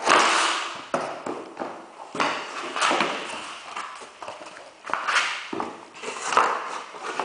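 Cardboard box scraping and rustling as a hard plastic tool case is slid out of it and the box is handled, with a few sharp knocks and clicks. The loudest scrape comes right at the start, with more scrapes and knocks every second or two after.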